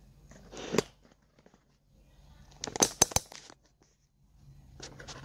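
Handling noise: a brief rustle under a second in, then a quick run of sharp clicks and crackles about three seconds in, and a fainter rustle near the end.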